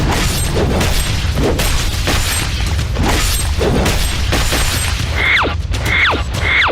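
Action sound effects over a steady bass-heavy music bed: a run of sharp hits and crashes, then three quick falling whistle-like zaps near the end.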